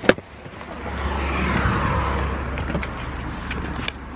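A car going past on the road, its tyre and engine noise swelling and falling away, over a steady low rumble of wind on the microphone. A sharp click just at the start, like a car door opening.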